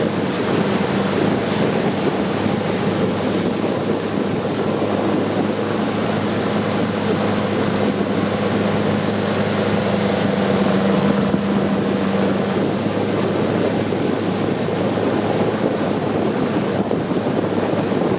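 Long-tail boat engine running steadily at cruising speed, a constant drone over the rush of water and wind buffeting the microphone.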